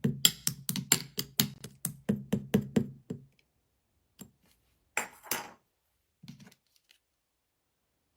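Slime being poked and pressed by hand, making quick clicking pops about four or five times a second, then after about three seconds a few scattered squishes before it goes quiet.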